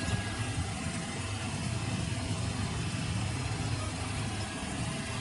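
Desktop FDM 3D printer running a print, its motors and fans making a steady mechanical whir and hum.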